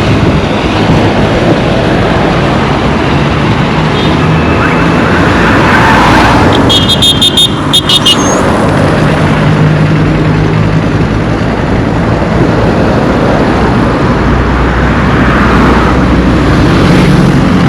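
Road traffic: motor vehicles passing close by, a steady mix of engines and tyre noise, with a quick run of short high beeps about seven seconds in.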